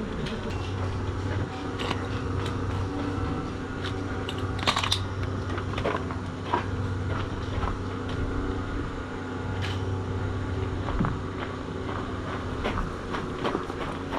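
Scattered crunches and sharp clicks, irregularly spaced, over a steady low hum.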